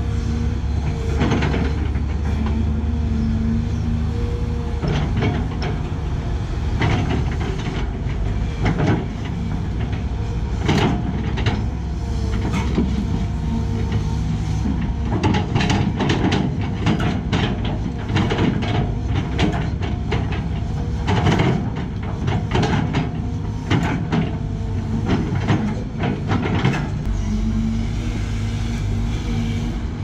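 Sany SY215C excavator's diesel engine and hydraulics running steadily under load, with frequent clanks and rattles as the bucket scrapes soil and stones on a slope. The clanking is thickest from about a third of the way in until near the end.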